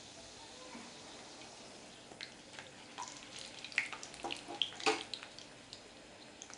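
Karanji, a stuffed flour pastry, deep-frying in hot oil in a kadai. A steady sizzle, with scattered sharp crackles and pops from about two seconds in, thickest around the middle.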